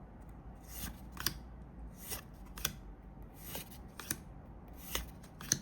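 Yu-Gi-Oh trading cards being slid one by one off the stack of a freshly opened booster pack, each a short papery swish, in pairs about every second and a half.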